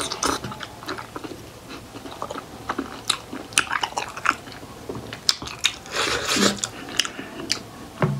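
Close-miked eating sounds of steamed buffalo momos being chewed: a quick run of short wet mouth clicks and smacks, with a longer noisy smack about six seconds in.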